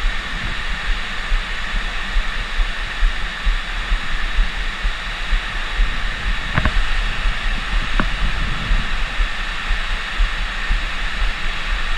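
Steady rush of water pouring through a small spillway, with wind buffeting the microphone in uneven low thumps. Two faint clicks come about two-thirds of the way through.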